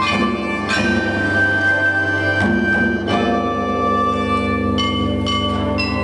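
Chinese court-music ensemble playing a slow piece led by bianzhong, bronze chime bells: struck notes ring out one after another with long decays over lower sustained tones.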